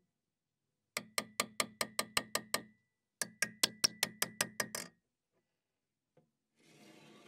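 Hammer striking a steel corner bracket riveted to a steel bar, in two quick runs of about nine blows each, at about five a second, each blow with a thin metallic ring.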